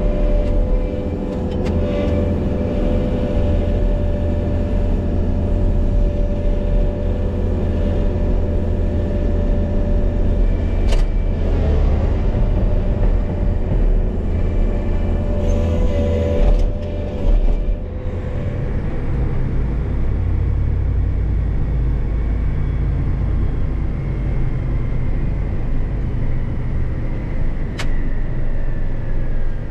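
Tractor engine and drivetrain running under way, heard from inside the cab: a steady low drone with a whine over it. The whine changes pitch about two-thirds of the way through and falls a little near the end, and there are a couple of sharp clicks.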